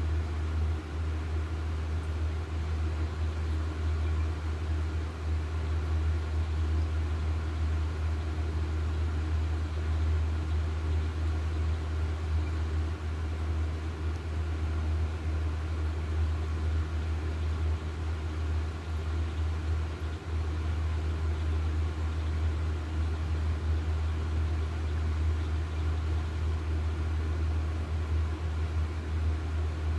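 A steady deep hum with a fainter hiss above it, unchanging throughout.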